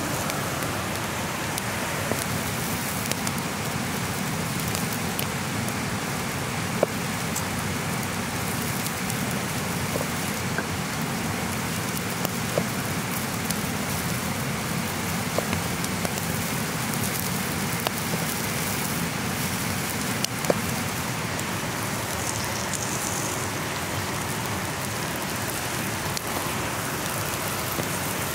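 Steady hiss of a wood fire and the flowing creek beside it, broken by a few sharp knocks of a cleaver cutting oranges on a wooden cutting board.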